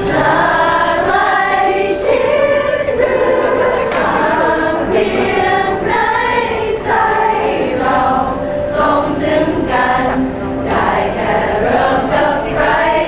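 A group of voices singing a song together, without a break.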